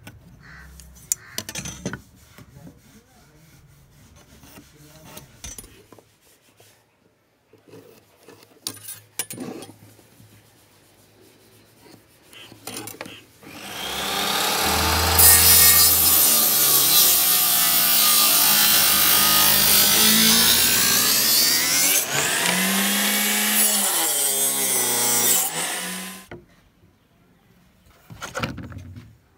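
Table saw blade spinning up and cutting hardwood for about twelve seconds in the middle, its whine rising at the start and then dipping and recovering in pitch as the blade bites into the wood. Light taps and knocks from handling the wood come before it and again near the end.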